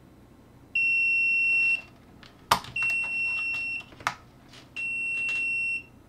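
SUNLU filament connector's electronic beeper giving three steady, high-pitched beeps of about a second each, roughly a second apart. Two sharp clicks fall between the beeps, the louder one about two and a half seconds in.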